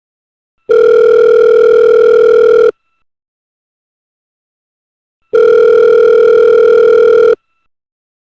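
Telephone beeping: a steady low tone held about two seconds, twice, with a silence of a little under three seconds between, the slow cadence of the ringing tone a caller hears while the call goes through.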